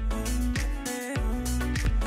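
Music with a steady beat and deep bass.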